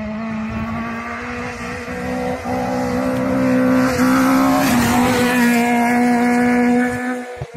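Rally car engine held at high revs as the car comes down a gravel stage and passes close by. The hiss of flung gravel peaks around the pass, about halfway through, and the engine note dips slightly as the car goes by.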